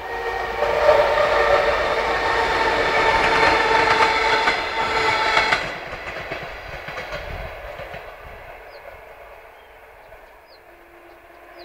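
2M62U twin-section diesel locomotive passing close, its two-stroke V12 diesel engines running loud with a steady tone for the first half, cutting back sharply about six seconds in. Then the passenger coaches roll by, their wheels clattering over the rail joints, and the sound fades.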